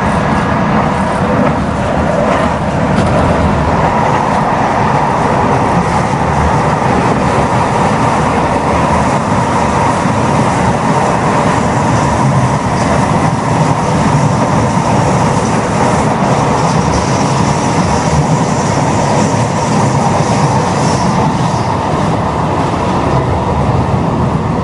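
Tyne and Wear Metro Metrocar running at speed, heard from inside the carriage: a continuous loud rumble of wheels and running gear with a faint steady hum.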